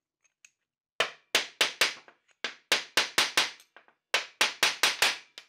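Sharp metal taps driving a worn bushing out of a Porsche G50 pedal-cluster part: about fifteen quick strikes in three bursts, starting about a second in.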